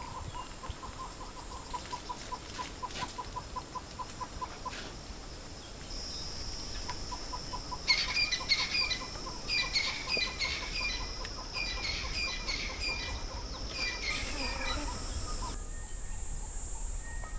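Outdoor bush ambience with birds calling: a rapid ticking call, about eight ticks a second, runs through the first five seconds and comes back briefly. From about eight seconds in, a bird repeats short chirping phrases until about fifteen seconds, over a steady high hiss that changes suddenly near the end.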